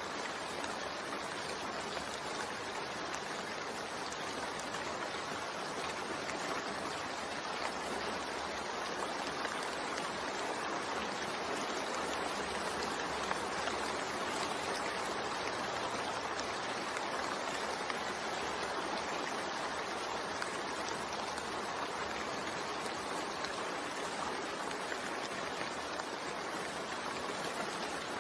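Steady rain, an even hiss of falling rain with no distinct drops or changes.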